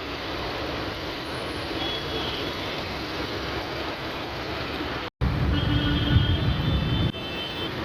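Road traffic noise. After a cut about five seconds in, a louder low engine rumble from a vehicle close by lasts about two seconds, then the steadier traffic noise returns.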